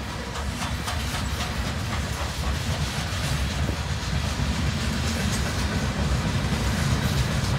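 Freight train boxcars rolling past close by: a steady rumble of steel wheels on rail with a faint clickety-clack over the rail joints, growing slightly louder.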